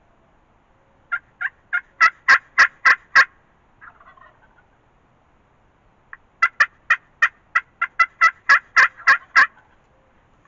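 Two series of loud hen turkey yelps on a turkey call. The first is about eight notes that grow louder, and after a pause comes a second of about a dozen.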